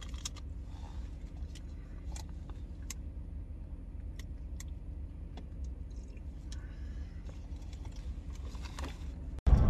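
Steady low hum of an idling vehicle heard inside the cab, with scattered small clicks and rustles of someone eating from a paper wrapper and drinking from a paper cup.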